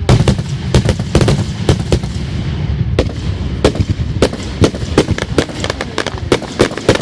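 Fireworks going off: a rapid, irregular string of sharp cracks and bangs over a continuous low rumble.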